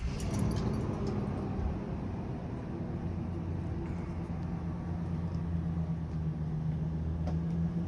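Motorhome's V10 gasoline engine starting and then idling steadily.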